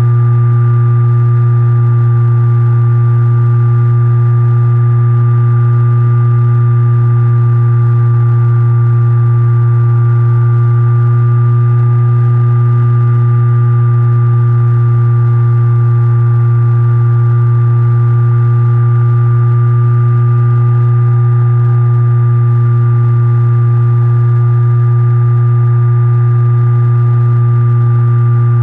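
RC plane's motor and propeller running at a steady throttle, a loud, low, unchanging drone with a few fainter higher tones above it.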